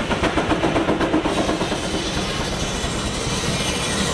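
Case steam engine running a sawmill by belt, its exhaust beating quickly and evenly for about the first second before the sound settles into a steadier rush.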